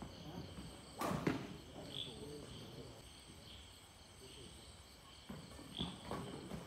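Badminton rackets hitting a shuttlecock in a doubles rally: a sharp, loud pair of hits about a second in, a lull, then more quick hits from about five seconds in as play resumes.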